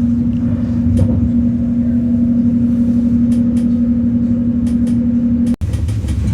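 Inside a moving electric passenger train: a steady hum over a low running rumble, with faint light clicks now and then. The sound cuts out for an instant near the end and then carries on unchanged.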